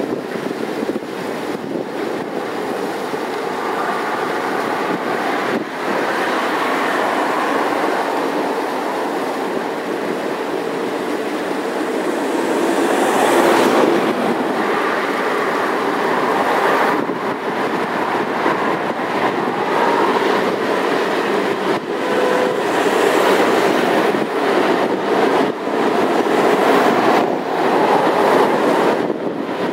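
A long freight train of hopper wagons rumbling along the track, with wheels clattering over the rails. It grows louder about halfway through as the locomotive comes onto the stone viaduct and the wagons roll across.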